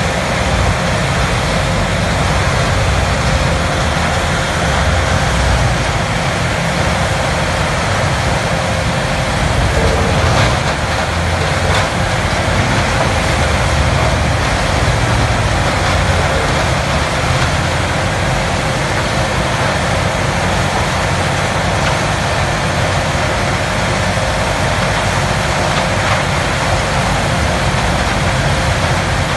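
Morbark 6400XT Wood Hog horizontal grinder with its CAT C27 diesel engine, running under load as it grinds brush and compost: a loud, steady din with a couple of sharper knocks around ten seconds in.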